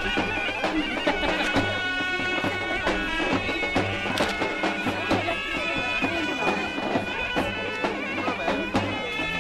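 Traditional folk music: a reedy wind-instrument melody over steady held drone tones, with repeated drum strokes.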